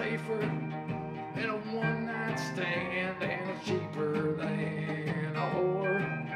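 Live country band playing: a male lead vocal over a strummed hollow-body electric guitar, pedal steel guitar and upright bass.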